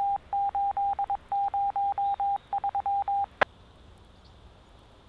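Scanner radio sending a Morse-code-style station ID: a string of short and long beeps at one steady pitch, grouped with longer gaps between them. It ends a little over three seconds in with a sharp click, followed by faint radio hiss.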